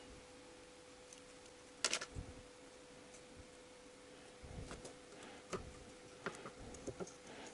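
Faint, sparse metallic clicks and ticks as a piston's oil-control ring and its inner expander spring are handled and fitted onto the piston. There is one sharper click about two seconds in and a run of small ticks near the end, over a faint steady hum.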